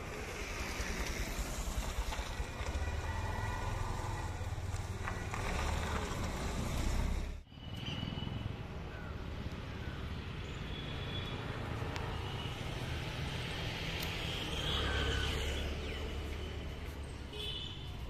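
Outdoor ambience: a steady noise of road traffic with a low rumble. The sound drops out sharply for a moment about seven seconds in, and a few short faint high chirps come through.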